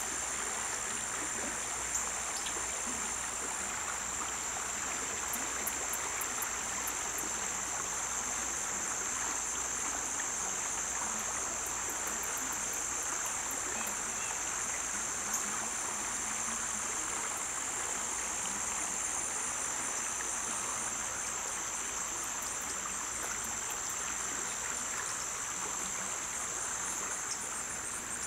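Rain-swollen creek running steadily, under a constant high-pitched chorus of insects with now and then a faint run of ticks.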